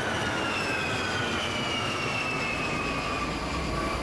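A-10 Warthog's twin TF34 turbofan jet engines, a steady rush with a high whine that falls slowly in pitch.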